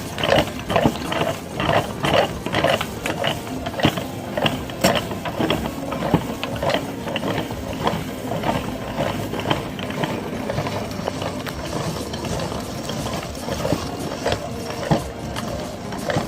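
Meat grinder running with hard objects in its feed, giving irregular sharp cracks and clicks over a steady mechanical grinding. The clicks come thick and fast for the first few seconds, then thin out.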